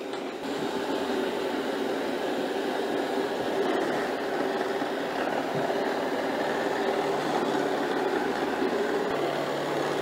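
Shark AV2501AE robot vacuum running steadily as it drives across a rug, its suction fan and brushes making an even mechanical hum.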